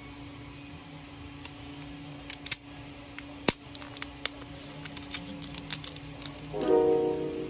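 A scatter of small, sharp clicks and taps as fingers handle and tap an Apple Pencil (2nd generation), over a steady low hum. Piano music comes in near the end.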